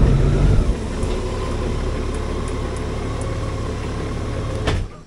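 Honda Gold Wing flat-six engine running, louder for the first moment and then settling into a steady idle, before it is switched off near the end.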